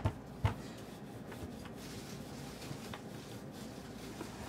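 A rolling pin knocks twice against the work surface at the start as samosa dough is rolled out thin, then only quiet room tone with a few faint ticks.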